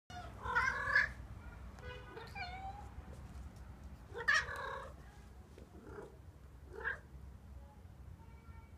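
White Norwegian Forest cat meowing repeatedly: about five separate meows, the loudest about half a second in and about four seconds in, one sliding down in pitch.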